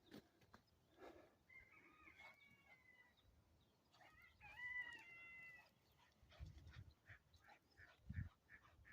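A dog whining twice, each whine a drawn-out high-pitched cry lasting over a second, a sign of its excitement. Soft low thumps follow near the end.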